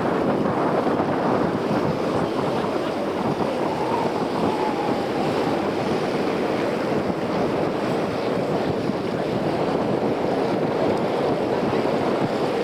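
Steady rush of wind buffeting the camcorder microphone, mixed with water noise from a boat under way on open harbour water.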